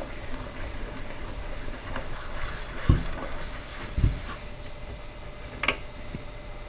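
Bolt being screwed by hand into a barrel nut at the top corner of a changing-table frame: faint handling and turning noise, with two dull knocks about a second apart near the middle and a short sharp click later.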